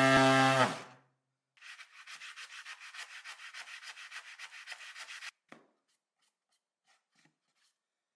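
An electric sander's motor hum cuts off about a second in. Then comes hand sanding of wood with an abrasive sponge: quick back-and-forth rubbing strokes, about seven a second, for three and a half seconds, stopping suddenly.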